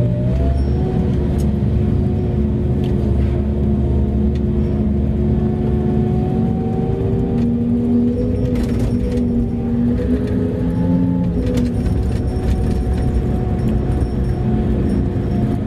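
Mining haul truck heard from inside the cab while driving: a steady low engine drone with a whine that drifts slowly in pitch, and loose cab parts rattling now and then, most around the middle.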